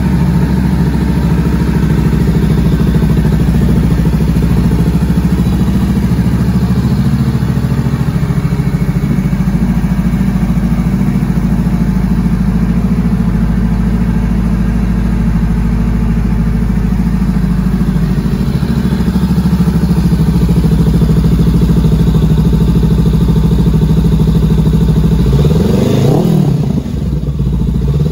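A 2020 Honda CB500X's parallel-twin engine idling steadily through an aftermarket Termignoni carbon slip-on muffler. Near the end it is given a short rev that rises and falls.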